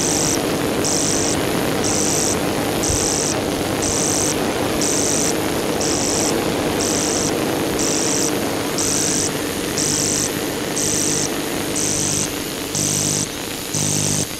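Layered electronic noise: a dense hiss and hum with a high pulsing tone repeating about twice a second. From about ten seconds in, low pulsing tones join in the same rhythm and grow louder toward the end.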